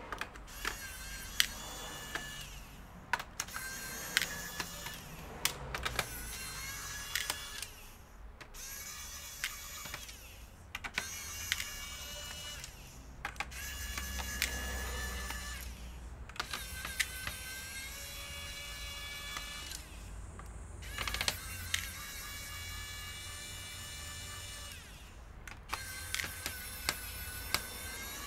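A small electric motor whining in short stretches, mixed with sharp clicks and taps of tools and laptop parts during disassembly.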